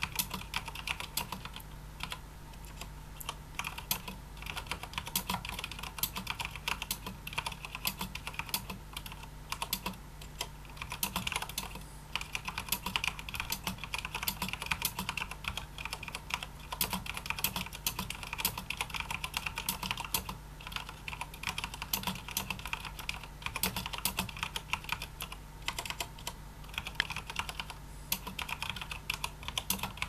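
Typing at about 60 words per minute on a Cooler Master Storm QuickFire Rapid mechanical keyboard with linear Cherry MX Black switches and MT3 /dev/tty keycaps: a quick, uneven run of key presses broken by a few brief pauses.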